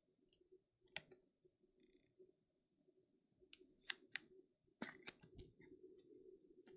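Trading cards being handled on a tabletop mat: a few soft clicks and taps as cards are picked up and set down, with a brief swish of a card sliding about four seconds in.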